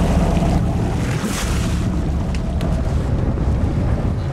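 Charter boat's engine rumbling steadily under wind buffeting the microphone and water washing against the hull, with a short rush of noise about a second in.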